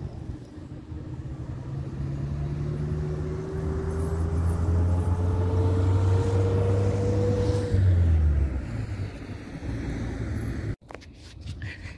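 A motor vehicle's engine hum, slowly rising in pitch for about eight seconds, then dying away. The sound cuts out briefly near the end.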